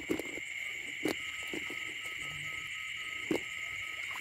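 Night chorus of insects and frogs in a flooded field after rain: a steady high shrill, with a short call repeated about four times a second from about a second in until near the end. Two or three brief knocks or splashes come through as well.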